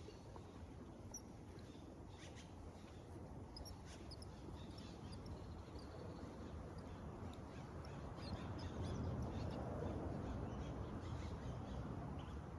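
Faint bird calls chirping over a low outdoor rumble that swells about eight seconds in.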